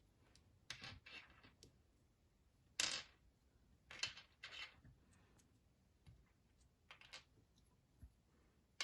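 Small plastic minifigure parts and their packaging being handled: a few short rustles and clicks, the loudest about three seconds in.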